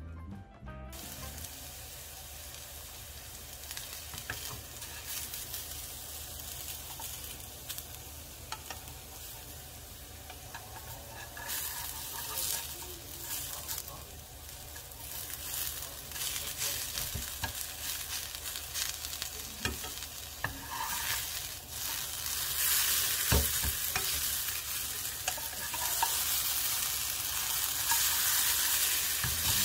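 Shredded potato pancake sizzling in oil in a nonstick frying pan, with a spatula scraping and pressing it and now and then clicking against the pan. The sizzling grows louder in the second half.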